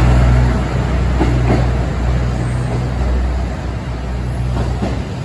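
KiHa 85 series diesel multiple unit pulling out and drawing away: a steady low diesel engine drone with running noise that slowly fades, with a few brief knocks along the way.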